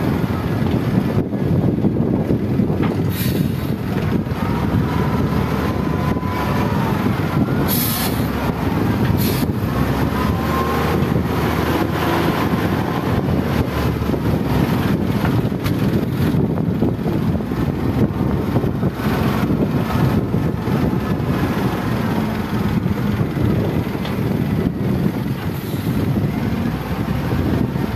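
XGMA wheel loader's diesel engine running steadily as the loader digs into and carries sand, with faint whines that rise and fall. A few short hisses come around a third of the way in.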